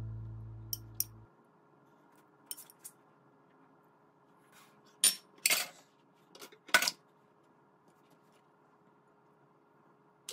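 Kitchen tongs clicking and tapping against a plastic food container and a plate while kimchi is served: a few light taps, then a louder cluster of sharp clicks about five to seven seconds in.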